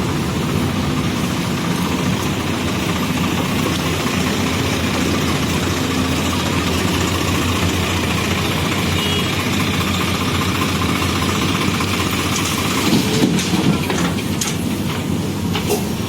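JCB backhoe loader's diesel engine running steadily, with a few sharp knocks near the end.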